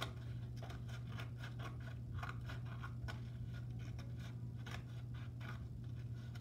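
Scissors cutting a circle out of a paper plate: a run of short, unevenly spaced snips as the blades close through the paper, over a steady low hum.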